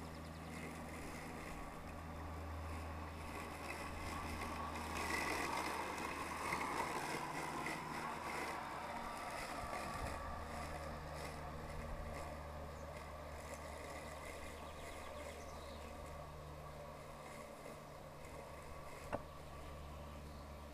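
Worx Landroid robotic lawn mower running over grass: a steady low electric hum from its blade and drive motors, louder for a few seconds while it is close and then easing off as it moves away. A single sharp click sounds near the end.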